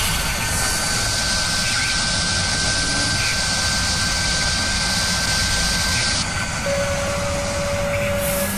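Steady jet-like whooshing sound effect with a thin high whine held through it; near the end two lower steady tones come in.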